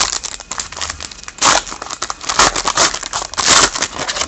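Foil wrapper of a hockey card pack crinkling and tearing as it is ripped open, in a run of crackly bursts with three loudest ones about a second and a half, two and a half and three and a half seconds in.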